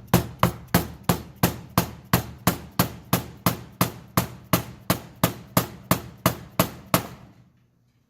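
Hammer tapping lubricated 95A durometer differential mount bushings into a BMW E36 differential cover: steady, evenly spaced strikes about three a second that stop about seven seconds in.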